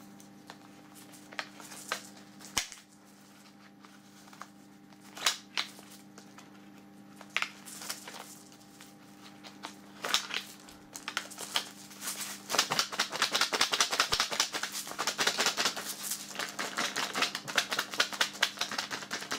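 Plastic clicking and knocking as airsoft shotgun shells are handled in and out of a duct-taped cardboard pouch: scattered single clicks at first, then a long run of fast, dense clicking during the last six seconds or so. A faint steady hum sits underneath.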